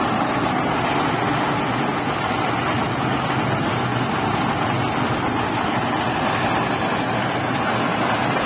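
Walnut husk-peeling machine running steadily: a constant mechanical churning with a low motor hum.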